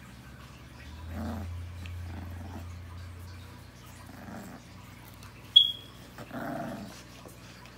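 Rottweiler puppies growling in play while being petted: four short growls, with a low rumble under the first two. A brief high squeak, the loudest sound, comes about two thirds of the way through.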